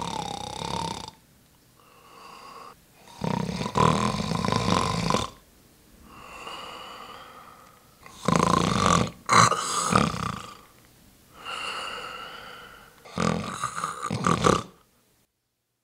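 A person snoring in a slow, regular rhythm: loud snores lasting a second or two, about every four to five seconds, with quieter breaths between them. It stops abruptly near the end.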